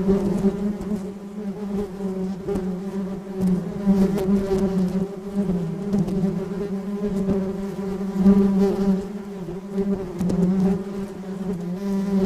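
A bee in flight buzzing continuously, a low wing-beat drone with a stack of overtones that wavers slightly in pitch and swells and fades in loudness as it moves.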